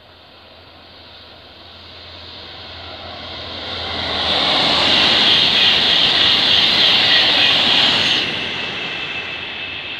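TGV high-speed train approaching and passing at speed: a rushing noise that builds for about four seconds, stays loudest while the train goes by, then drops off sharply and fades as it recedes.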